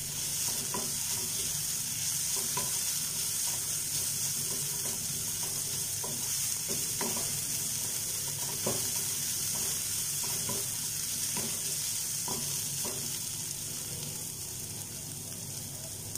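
Chopped onion, ginger and garlic with turmeric frying in oil in a white-coated pan: a steady sizzle, with a wooden spatula stirring and scraping through it and knocking on the pan about once a second. Near the end the stirring stops and the sizzle gets a little quieter.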